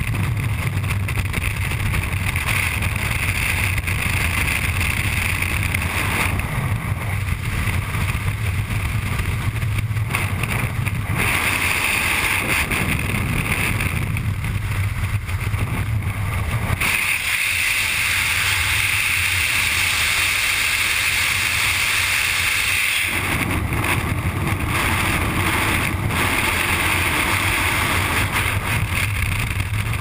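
Freefall wind rushing over a body-mounted GoPro camera's microphone: loud, steady wind noise whose tone shifts several times.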